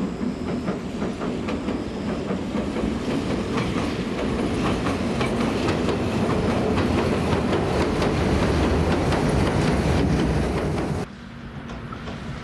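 Train running past, its wheels clicking over the rail joints and growing louder. It cuts off abruptly near the end to a quieter steady hum.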